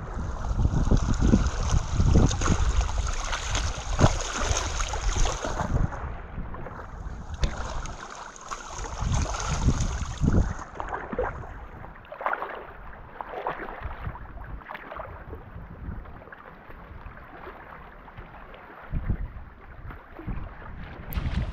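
Rubber waders wading through shallow lake water: irregular splashing steps and small waves lapping. Wind buffets the microphone with a low rumble for roughly the first eight seconds, then eases.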